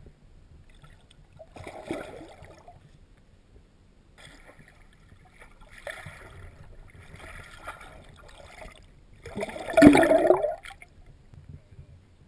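Water gurgling and sloshing around a submerged camera, coming in irregular surges, the loudest about ten seconds in.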